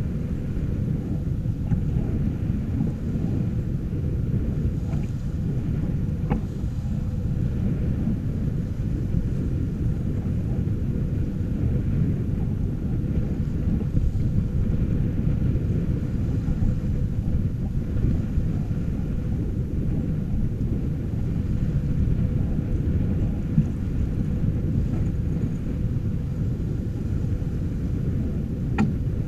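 Steady low rumble of wind on the microphone mixed with water rushing past the hull of a sailing yacht under sail, with a couple of small clicks.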